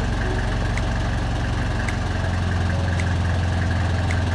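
Boat engine running steadily, a low drone that grows a little stronger about two seconds in, with a faint tick repeating about every 0.7 seconds.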